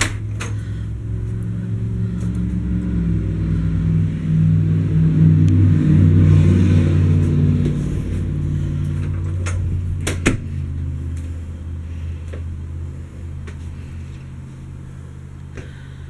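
A steady, low engine-like hum that grows louder toward the middle and then fades, with a couple of sharp knocks, one at the start and one about ten seconds in.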